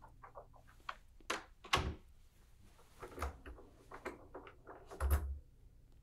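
Office door being pulled shut, with heavy thuds about two seconds in and near the end, small clicks, and the rustle of a coat being put on.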